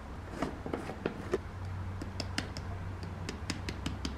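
A string of light clicks and taps as flour is tipped from a jar into a metal mesh sieve resting on an enamel bowl, over a low steady hum.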